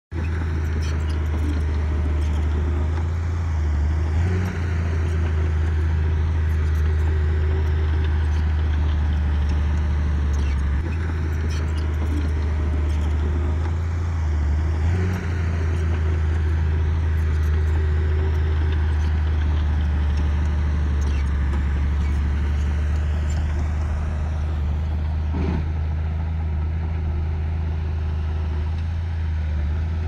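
Heavy earthmoving machine's diesel engine running with a steady low drone, shifting briefly in pitch about 4 and 15 seconds in.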